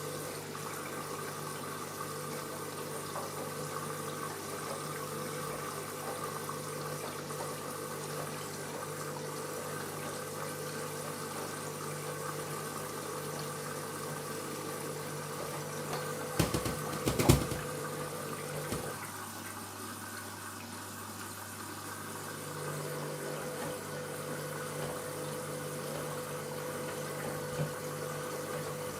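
Washing machine early in a wash cycle: water rushing in and a steady motor hum with fixed tones. A brief cluster of knocks and clatter comes a little past halfway, and the hum drops for a few seconds before returning. No grinding is heard yet; the machine is suspected of a drum or motor fault.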